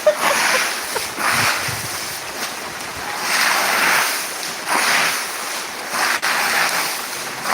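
Hailstones and ice being cleared off the ground: irregular swishing scrapes that swell and fade every second or so, with a sharp click now and then.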